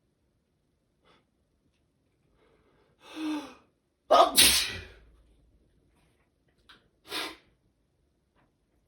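A person's allergy sneezing fit: a gasping intake of breath, then one loud explosive sneeze about four seconds in, followed by a short sniff and a quick breath near the end.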